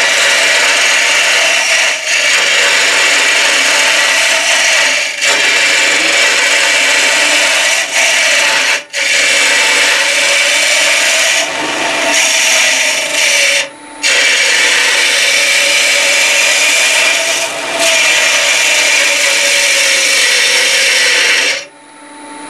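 Carbide hollowing cutter cutting the inside wall of a wooden hollow form spinning on a lathe: a loud, steady scraping hiss of wood being cut, broken by short gaps about nine and fourteen seconds in as the cutter comes off the wood, and stopping about a second before the end while the lathe keeps running. This is the wall being taken down to its final thickness.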